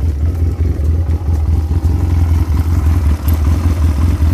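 Chinese 250cc ATV's single-cylinder four-stroke engine idling steadily. It holds a good idle with the choke off, its carburetor freshly cleaned and air-mixture screw adjusted.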